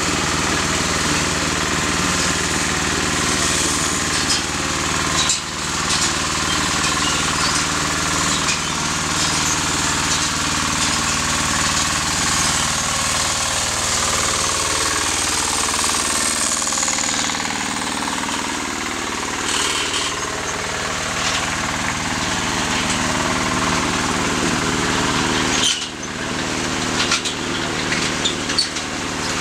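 Small engine of a motorized banana-cableway trolley running steadily as it hauls along the overhead cable, with a brief dip near the end.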